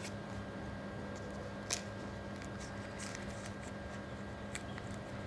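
Banana leaf folded and tucked shut by hand: a few faint crinkles and clicks, the clearest about a second and a half in, over a steady low hum.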